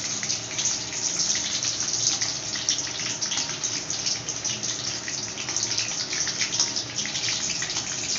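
Black urad dal vadas deep-frying in hot oil, sizzling steadily with a dense, fine crackle.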